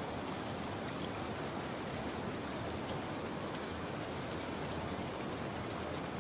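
Steady rain falling: an even hiss that holds level throughout.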